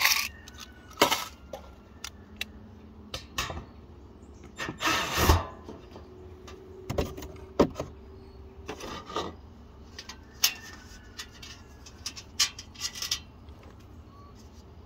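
Clattering knocks and rattles of a thin metal baking pan being handled and taken down off a plywood target board, with a short whirring burst from a drill about five seconds in as the fixing screw is backed out.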